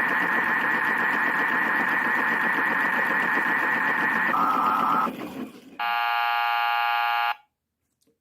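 PlayGo toy washing machine playing its electronic cycle sound effect: a steady warbling tone over a noisy whir. About four seconds in the tone drops lower, then it stops. A second later a harsh electronic buzzer sounds for about a second and a half and cuts off suddenly.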